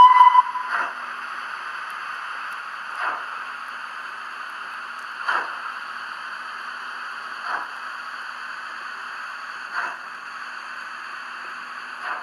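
Sound-fitted OO gauge model of an LNER B1 steam locomotive, its sound decoder's small speaker playing slow steam chuffs about every two seconds over a steady hiss as the model crawls along. A brief high whistle toot sounds at the very start.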